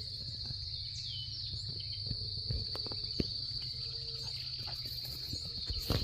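Steady, high-pitched insect trill running on without a break, with a bird giving short falling chirps now and then over it.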